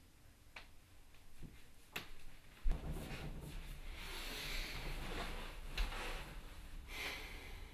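Handling and movement noises: a few faint clicks, a sharp thump, then a few seconds of rustling and scraping with another knock, as a person moves about and settles at a table.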